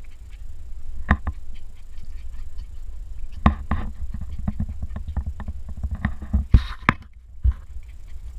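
Pembroke Welsh corgi puppies bumping and pawing at a close camera: a steady low rumble of handling and contact noise with scattered sharp knocks, the loudest about two-thirds of the way through.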